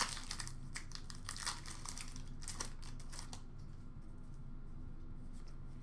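Trading cards being flipped through by hand, card sliding over card: a quick run of light clicks and rustles for about the first three seconds, then only faint room noise.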